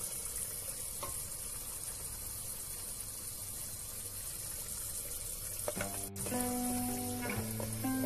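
Lamb and chickpea stew sizzling in a pot as it is stirred with a wooden spatula, a steady hiss. Plucked guitar music comes in about six seconds in.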